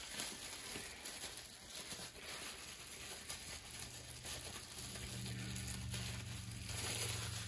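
Bubble wrap crinkling and rustling as a wrapped part is handled and set back into a cardboard box, with faint light knocks. A low steady hum comes in about halfway through.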